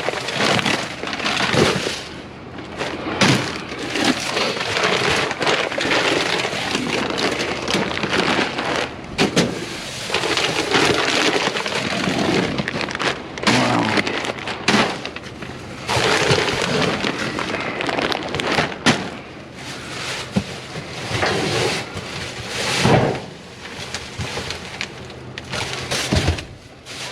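Rummaging through a packed dumpster: bags and packaging rustling and crinkling, with frequent crackles and knocks as things are shifted.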